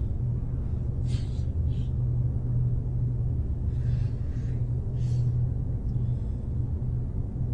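A steady low rumbling drone, with a few brief soft hissing rustles over it about a second in and again around four to five seconds in.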